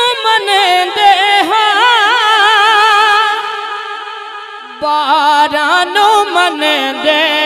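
A man singing a Punjabi naat into a microphone, drawing out long notes with wavering ornaments; one phrase fades about four seconds in and a new one starts near five seconds.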